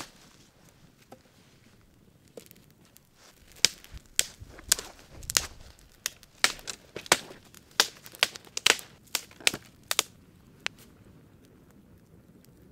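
A series of about fifteen sharp cracks and knocks, irregularly spaced, starting a few seconds in and stopping around ten seconds in, after a single click at the very start.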